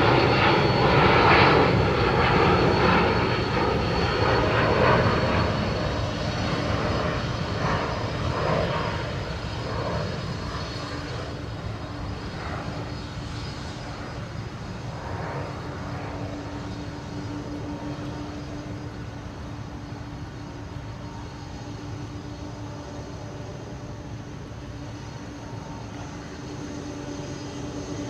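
Boeing 747-400 freighter's four jet engines, loud at first and fading over about ten seconds to a steady, quieter rumble with a faint steady hum.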